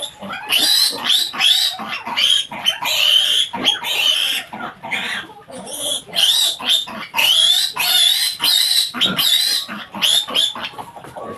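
Piglet squealing: a long run of loud, high-pitched screams, one after another with only brief breaks. It is the distress of a piglet held up by its hind legs while being castrated.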